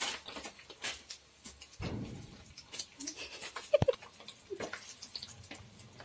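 Hot oil in a wok crackling and popping in irregular small ticks as battered quail eggs fry in it, with one louder sharp pop a little before four seconds in.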